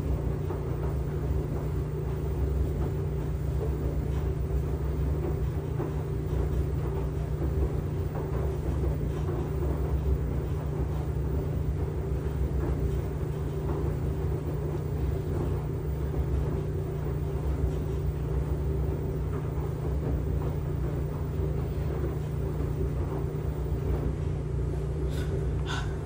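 LG washing machine running mid-cycle: a steady low rumble with an even motor hum that holds unchanged throughout.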